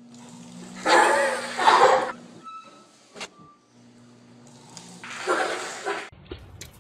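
Treadmill motor running with a steady low hum under the moving belt. Twice a person's voice breaks out loudly over it, and a short beep and a sharp click come in the middle.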